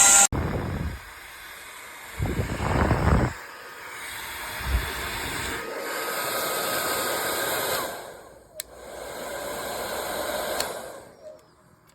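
Handheld hair dryer blowing, a steady rushing hiss of air with low gusts of airflow about two to three seconds in. A sharp click comes just before the last stretch, and the dryer dies away about a second before the end.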